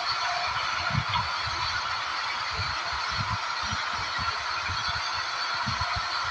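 Steady loud machine noise filling an aircraft cargo hold, with irregular low thumps and knocks as a netted cargo pallet is pushed over the roller floor.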